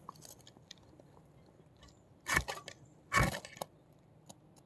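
Two short rasping scrapes of a ferro rod (fire steel) struck to throw sparks onto dry leaves used as tinder in a twig stove, about a second apart, the second one longer.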